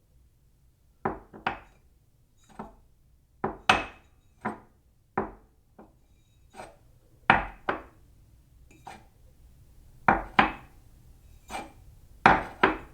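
Ceramic cup set down on a saucer again and again: short clinks, many of them in quick pairs, each with a brief ring.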